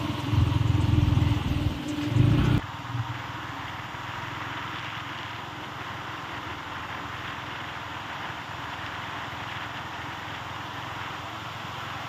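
Steady, even rushing of a distant waterfall. It is preceded for the first two and a half seconds by a louder low hum that cuts off abruptly.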